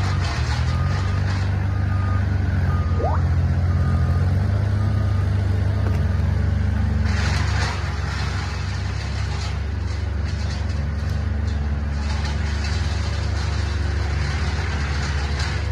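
Compact wheel loader's engine running steadily under load as it drags felled trees through the forest floor, loud heavy work. Its reversing alarm beeps repeatedly for the first few seconds.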